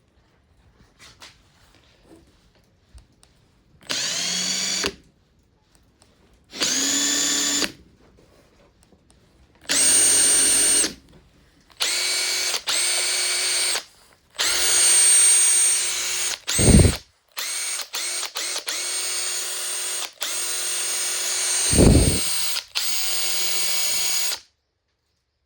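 Makita TP131D cordless 4-mode impact driver being run in repeated trigger pulls of one to a few seconds each, its motor whine rising in pitch as each pull starts. Two short, loud low thuds come about two-thirds of the way through and again near the end.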